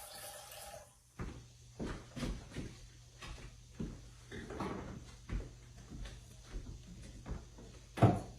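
Water from a tap runs and stops about a second in, followed by a string of light knocks and clatters of kitchen cookware and utensils, with one louder knock near the end.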